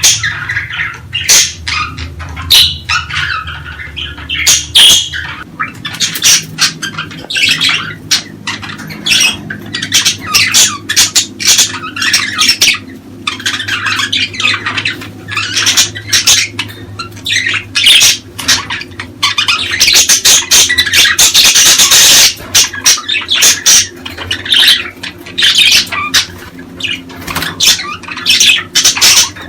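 Budgerigars chattering and squawking in quick, irregular calls, with a louder, denser stretch of chatter a little past the middle, over a low steady hum.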